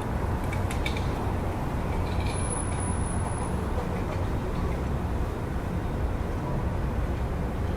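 Steady low rumble of city street traffic, with a few faint brief high-pitched sounds in the first three seconds.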